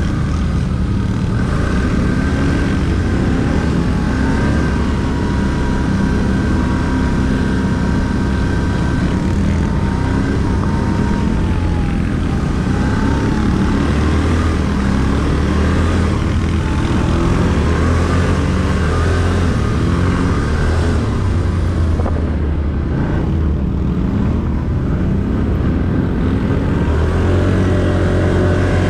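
ATV engine running under way, its pitch shifting with the throttle and rising near the end as it revs up.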